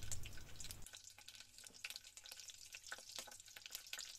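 Cut green chillies frying in hot oil in a pan: a soft, steady sizzle with many small crackles and pops.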